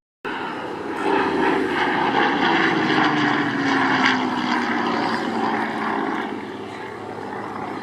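Propeller-driven aircraft flying past, its engine note sliding down in pitch as it goes by, loudest in the first half and then fading.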